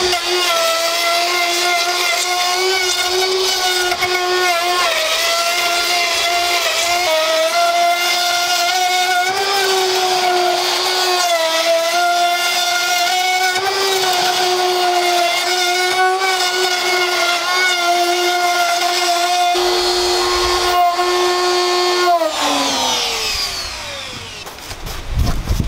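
Electric handheld router running at high speed in a router sled, cutting across a wide wooden panel to flatten it; its whine dips and recovers slightly as the bit takes load. About 22 seconds in it is switched off and winds down with a falling whine, and a different low machine noise starts right at the end.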